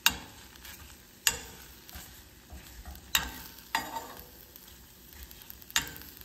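Metal spoon stirring oats, apple and almond milk in a nonstick saucepan, clinking sharply against the pan about five times, over a faint sizzle as the mixture starts to boil.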